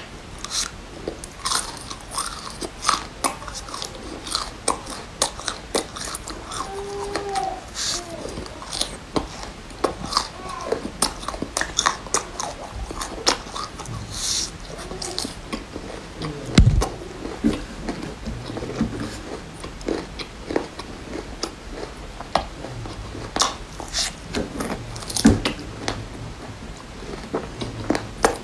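Close-miked biting and chewing of raw red bird's-eye chilies pulled off a skewer: irregular sharp, crisp crunches throughout, with one low thump a little past halfway.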